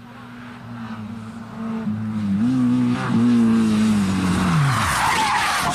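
Rally car engine running hard as it approaches, its pitch climbing, dipping briefly about three seconds in, then falling away as the driver lifts off. A loud burst of skidding noise follows near the end, with a sharp crack right at the close.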